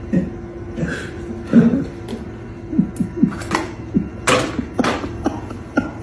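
Plastic bag of cat food crinkling and rustling in irregular bursts as a cat pulls and carries it in its mouth, with a few light knocks against the feeder.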